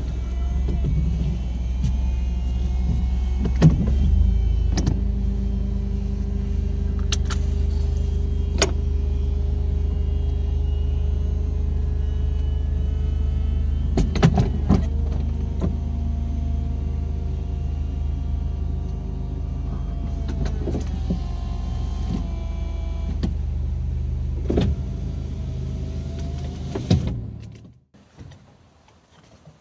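Car engine and road noise heard from inside the cabin while driving. The engine note shifts a few times, with a few sharp knocks, and the sound cuts off abruptly near the end.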